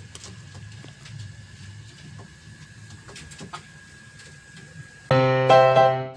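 Faint background hum with scattered small clicks, then background electric piano music starts abruptly and loudly near the end.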